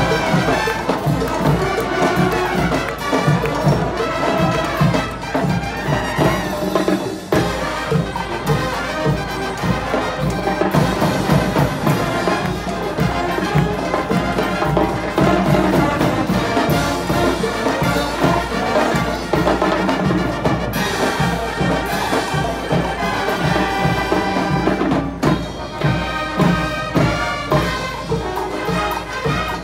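A school marching band playing: brass and drums performing a continuous piece with a steady beat.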